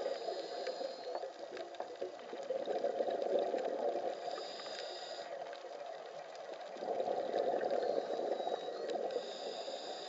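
Underwater sound of a scuba diver breathing through a regulator: exhaled bubbles rise in two long bubbling swells, each followed by a brief higher hiss of inhalation. Faint scattered clicks sound in the background.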